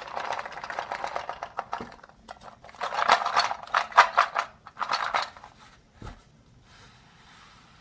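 Plastic toy fruit and vegetable pieces clattering against each other and the wooden crate as the crate is handled, in two spells of rapid clicking, followed by a single low knock about six seconds in.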